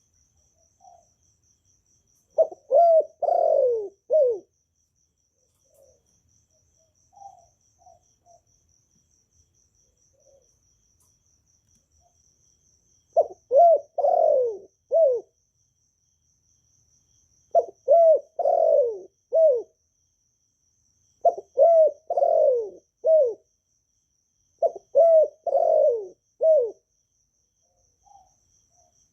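Spotted dove cooing: five phrases of several notes each, about two seconds long, with soft single coos between them.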